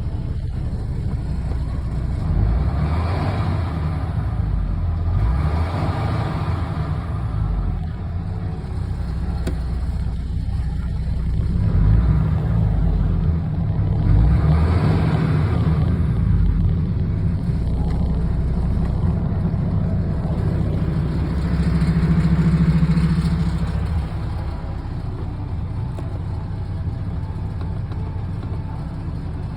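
MAN TGX 21.440 truck's six-cylinder diesel engine running with a low steady rumble, revved up and let back down about five times.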